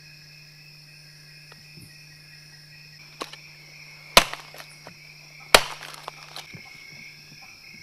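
Steady chorus of night insects, with two loud sharp cracks about a second and a half apart just past the middle.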